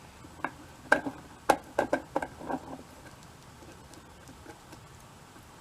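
Push drill pumped back and forth to bore a hole, a run of sharp clicks and knocks about two to three a second that stops after about two and a half seconds.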